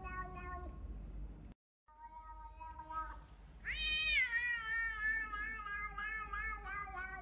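A cat meowing in long drawn-out calls with a wavering pitch; the sound cuts out for a moment about a second and a half in, then a loud call starts high about halfway through, falls and is held for several seconds.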